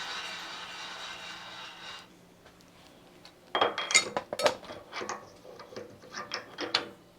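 A steady hiss of air for about two seconds. After a short pause comes a run of irregular metallic clinks and knocks from tool work on the milling machine's drawbar.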